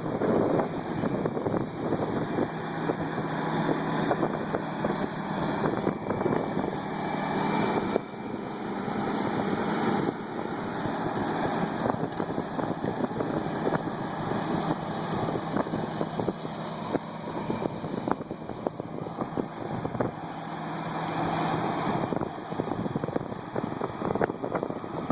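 Harvest machinery running steadily, a low engine hum under a rushing noise, with wind buffeting the microphone.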